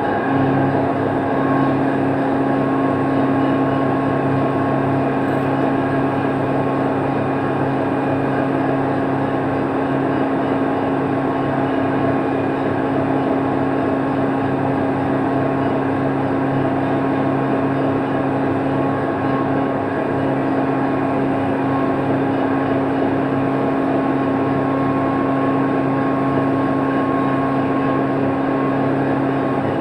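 Tugboat's diesel engine running steadily: an unbroken drone with a constant low hum.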